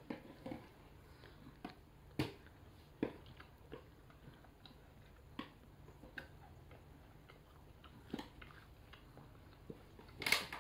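Faint mouth sounds of someone chewing a soft homemade milk-and-Milo candy ball: small wet clicks and smacks spaced about a second apart, with a louder mouth noise near the end.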